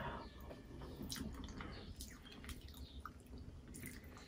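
Faint wet mouth sounds of someone chewing a spoonful of food: scattered small clicks and smacks.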